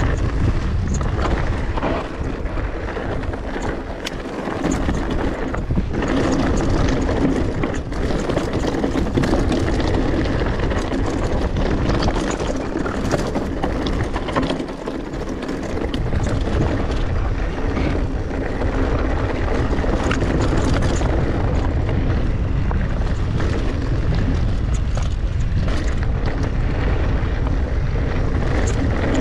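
Mountain bike rolling along a trail: tyres on dirt and stones, with frequent short knocks and rattles from the bike, under wind noise on the microphone.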